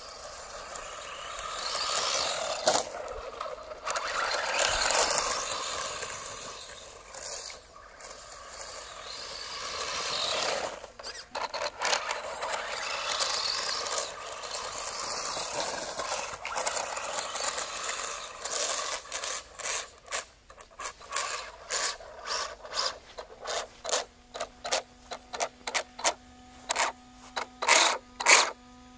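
3D-printed belt-drive RC buggy's electric motor and drivetrain whining in swells as it speeds up and slows on grass. In the last third the whine gives way to rapid, irregular ratcheting clicks over a steady hum as the car sits still: the rear drive belt skipping on its pulley, a belt that is slipping off.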